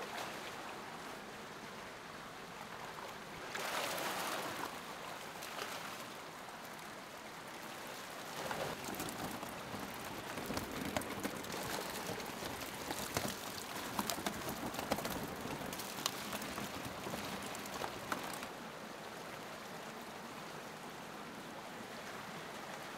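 Water splashing and churning as a crowded pond of trout thrash at the surface while being scooped out with a long-handled dip net, over a steady rush of running water. The splashing comes in surges and dies away about 18 seconds in, leaving the even rush of flowing water.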